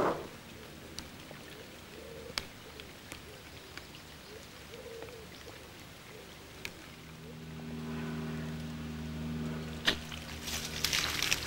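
Raindrops hitting a plastic bag over the camera, making scattered sharp crackles and ticks. From about seven seconds in a steady low hum joins, and near the end the crackling turns dense and louder.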